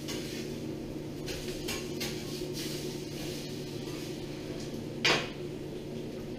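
KitchenAid stand mixer running with a steady hum while the sour cream is folded into the whipped cream, with a short, loud knock about five seconds in.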